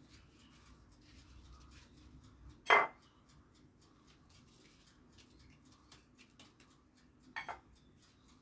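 Faint rustling and crackling of thin phyllo sheets being handled. A utensil clinks sharply against a dish about three seconds in, and two lighter knocks come close together near the end.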